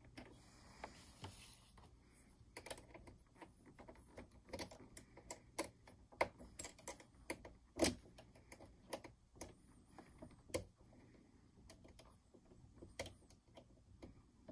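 Faint, irregular light clicks and taps of small metal parts being handled at a Janome sewing machine's needle bar, as the presser-foot ankle is held in place and its screw threaded on and tightened.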